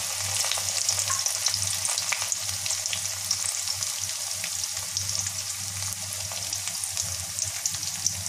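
Chopped garlic and onion with dried red chillies frying in hot oil in an iron kadai for a tempering: a steady sizzling hiss dotted with many small crackles and pops.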